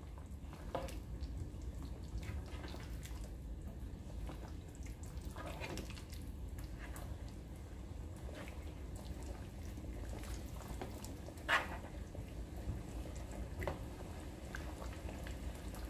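Spatula stirring pieces of goat meat in the watery juices the meat has released in a pot: quiet wet sloshing with scattered light knocks, the loudest about eleven and a half seconds in, over a low steady hum.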